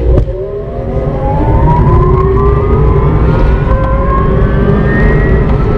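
Electra Meccanica Solo electric car accelerating: the electric drive motor's whine rises steadily in pitch as the car gains speed, over a low rumble of road noise.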